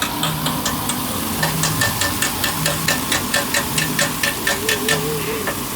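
Metal spatulas clacking rhythmically on a teppanyaki griddle in fast, even taps, about five or six a second, over the sizzle of food frying on the hot plate.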